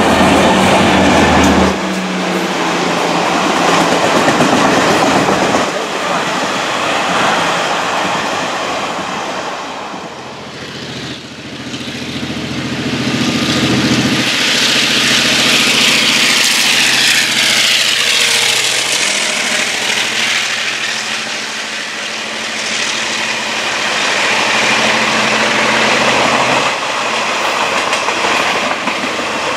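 Diesel-hauled passenger trains passing at track side, the wheels rattling and clacking over the rails. The first couple of seconds are the tail end of one train's coaches; then a diesel locomotive approaches and goes by with a steady engine drone, followed by its coaches' wheels clattering.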